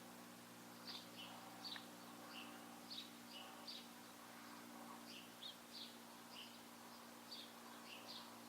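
Faint, repeated short bird chirps over a steady low hum.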